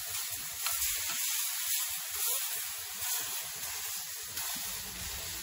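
Steaks sizzling on a flat metal griddle plate over a wood fire: a steady hiss of searing meat as tongs turn the pieces.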